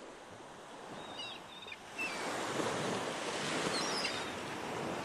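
Sea waves washing onto the beach, swelling up over the first two seconds and then holding steady. A few short, high bird chirps come about a second in and again near four seconds.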